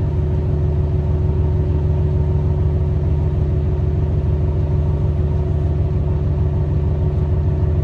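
Diesel engine of a Tosa Kuroshio Railway 9640 series railcar idling steadily while the train stands at a platform, heard from inside the passenger cabin: an even low hum with a faint constant higher tone over it.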